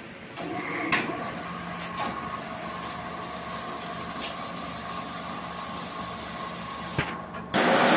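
A 500-bar high-pressure jet machine running steadily, with a few sharp knocks. About seven and a half seconds in, the wet copper-slag blasting jet opens with a sudden, loud, steady hiss.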